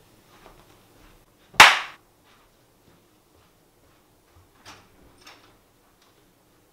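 A single sharp bang about a second and a half in, dying away quickly, then a couple of faint clicks.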